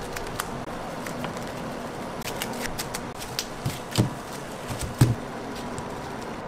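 Light taps and handling noises of a slab of pulled sugar candy being pressed and rolled on a work table by gloved hands, with two heavier thumps about four and five seconds in, over a steady background hiss.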